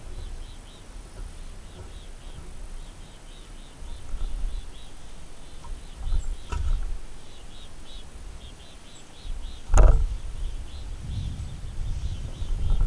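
Outdoor ambience: a low, gusty rumble of wind on the microphone under a faint, high chirping that repeats a few times a second. Two sharp knocks come through, a lighter one about six seconds in and a louder one about ten seconds in.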